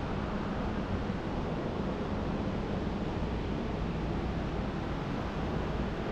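Steady low rushing noise, even throughout, with no distinct knocks or tones.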